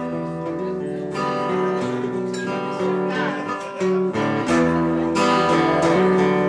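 Acoustic guitar strummed in a steady rhythm, the chords changing about once a second.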